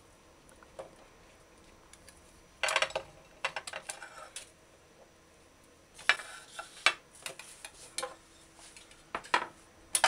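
Kitchen clatter of a knife and ceramic dishes knocking and scraping on a stone countertop while okra pods are trimmed. It comes in short bursts of clicks, about two and a half seconds in and again at six seconds, with a single knock near the end.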